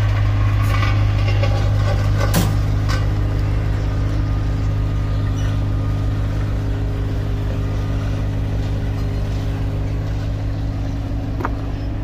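Paving equipment's engine idling steadily with a deep, even hum. A few short knocks and scrapes of rakes working the asphalt come over it, the loudest about two seconds in.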